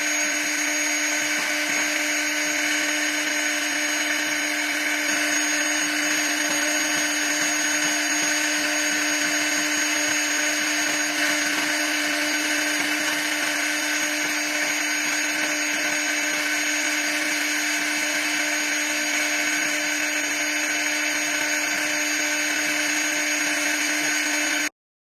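CNC router's high-speed spindle running and machining double-colour plate: a steady whine over hiss that stops abruptly near the end.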